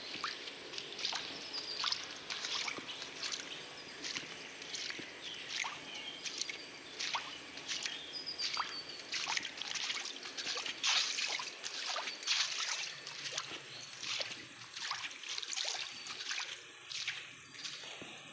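Wet concrete being worked by hand: irregular wet squelching and scraping strokes.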